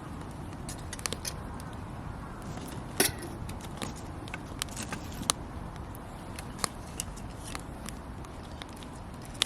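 Wood campfire burning, crackling with irregular sharp pops over a steady low rush of the flames, one louder pop about three seconds in.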